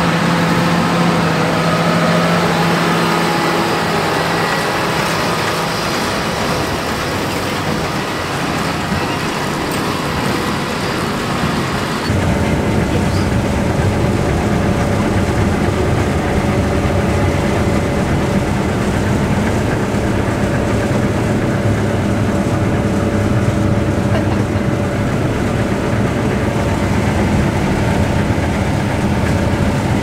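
Heavy farm machinery running steadily. At first it is a tractor working a baler in the field. About twelve seconds in, it switches abruptly to a combine harvesting wheat, heard from inside its cab as a steady, deep drone.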